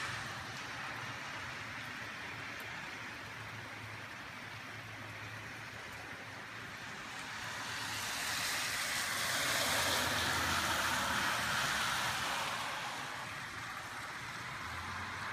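Steady rain falling on a wet street, an even hiss throughout. In the second half a car's tyres hiss past on the wet road, rising and fading over about five seconds.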